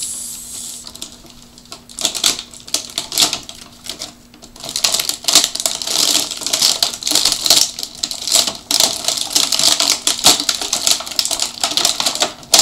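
Clear plastic blister packaging crinkling and crackling as it is flexed and worked by hand to pop a toy figure out. Scattered crackles at first, then from about five seconds in a dense, really loud crackling.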